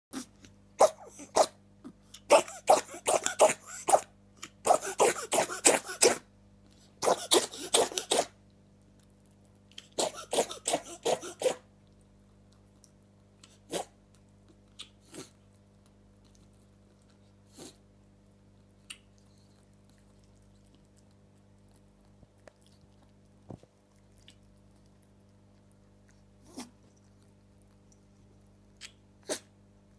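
A pet sneezing in quick fits: four bursts of rapid sneezes in the first twelve seconds, then single sneezes now and then.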